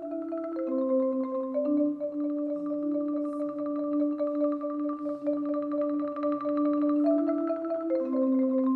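Marimbas playing sustained chords as fast tremolo rolls, the chords changing about once a second, over a lower bass line.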